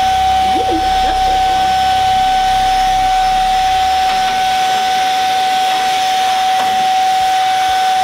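Inse S6 cordless stick vacuum running handheld, its motor a steady high-pitched whine over the rush of air. A lower rumble beneath it drops away about halfway through.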